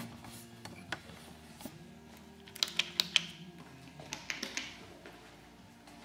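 Scattered light clicks and taps from the camera being handled and carried, with a quick cluster of sharper clicks about two and a half to three seconds in.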